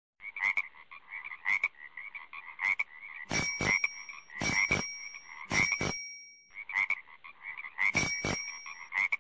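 Frog croaking over and over. From about three seconds in come four sharp double strikes, each leaving a brief high ringing; the croaking drops out for a moment past the middle.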